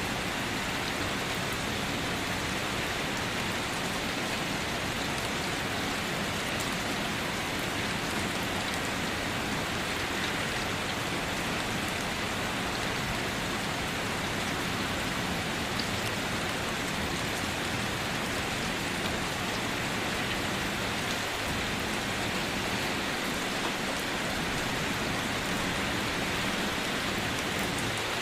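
Steady light rain falling, an even hiss with scattered drops pattering on a surface.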